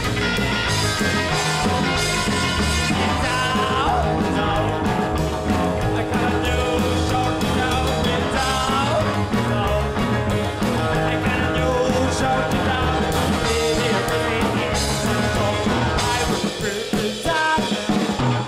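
Rock music with singing and a steady beat.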